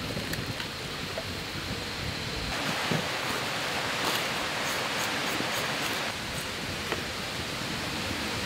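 Steady rushing outdoor noise, louder for a few seconds in the middle, with scattered small crackles from a wood campfire being tended.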